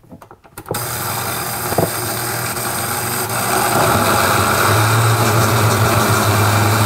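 A few light clicks of the control buttons, then about a second in an Oster countertop blender switches on and runs steadily, chopping crushed tomatoes, chilies, onions and green peppers into salsa; it gets a little louder a few seconds in.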